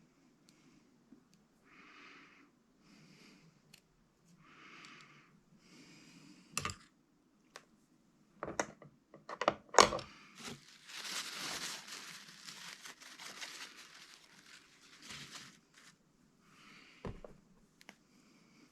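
Hand work on small parts while replacing solenoid O-rings: soft scuffs, then a run of sharp clicks and taps, followed by about five seconds of rustling or crinkling, with a last click near the end.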